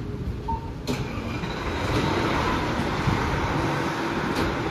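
Fire apparatus diesel engines running in the station bay, a steady rumble that swells about two seconds in, with a couple of sharp clicks, one about a second in and one near the end.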